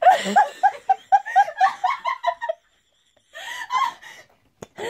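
A person laughing hard in a quick run of short, high ha-ha-ha bursts, breaking off about halfway, then another short laugh and a single click near the end.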